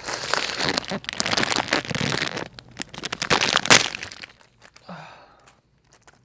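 Candy packaging crinkling and crackling as it is pulled and torn open by hand, with a sharp crack about three and a half seconds in. The noise stops about four seconds in.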